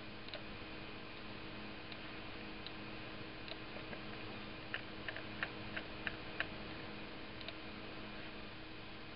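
Scattered light clicks of a computer mouse, a quick run of about half a dozen roughly five to six and a half seconds in, over a steady low electrical hum.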